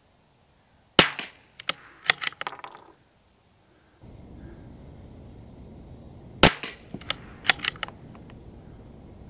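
Two .22 LR shots from a CZ 457 Royal bolt-action rifle, one about a second in and one about six and a half seconds in. Each is followed within a second or two by several sharp metallic clicks as the bolt is worked to eject the case.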